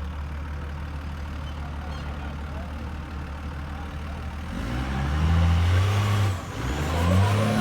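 Cummins 6BT inline-six turbodiesel in a Jeep Grand Wagoneer running low and steady, then revving up about four and a half seconds in, easing off briefly and revving up again as it pulls the truck up a rock ledge under load.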